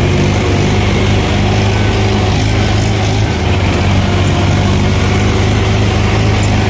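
Farm tractor's diesel engine running steadily at an even speed, heard from the driver's seat.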